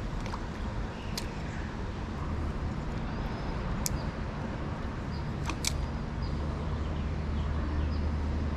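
Steady low background rumble outdoors, with a handful of short, sharp clicks scattered through it.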